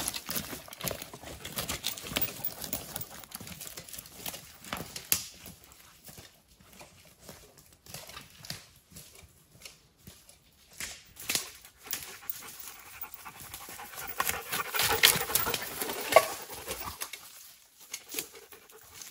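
Dog panting in a run of quick, breathy strokes, quieter for a few seconds in the middle.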